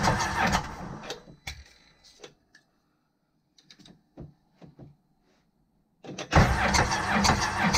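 Supercharged Sea-Doo Rotax 1503 three-cylinder engine cranking on its starter with a compression gauge in one cylinder, a steady pulsing churn. It stops about a second in, a few clicks and knocks follow as the gauge is moved to the next cylinder, and cranking starts again abruptly near the end.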